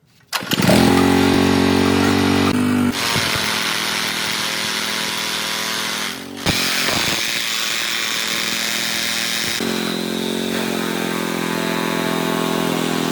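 Small Honda generator engine starting abruptly and then running. Its running note changes about three seconds in, dips briefly near the middle and shifts again about ten seconds in.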